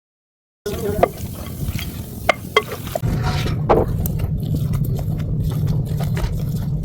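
Cooking sounds: a utensil clicking and scraping against a dish or pan. From about three seconds in there is a steady low rumble with frequent crackles, like food frying over a fire.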